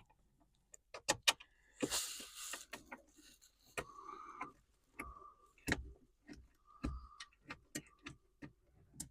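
Irregular clicks and knocks with a few short squeaks and a brief rustle about two seconds in, from tools and parts being handled.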